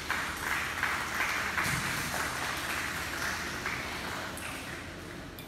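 Indistinct crowd noise from a large group of seated youths in a big indoor sports hall, a steady jumbled hiss with no single voice standing out.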